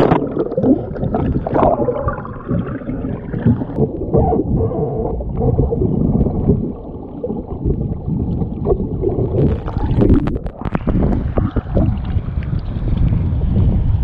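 Muffled sloshing and gurgling of water with scattered knocks, heard through a swamped, waterlogged camera microphone as waves wash over it during a surf launch of an inflatable kayak. A cluster of louder knocks comes about ten seconds in.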